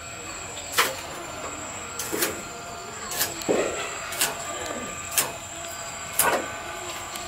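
Fresh taro stems and leaves being cut against an iron bonti blade: a crisp snap about once a second, with leaf rustling between, over a steady background hiss.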